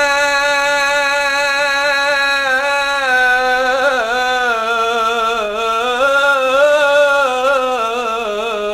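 A solo voice singing an Arabic devotional song (nasheed) of supplication to God, holding one long note that turns in melismatic ornaments from about three seconds in. Only the single voice is heard, with no instruments.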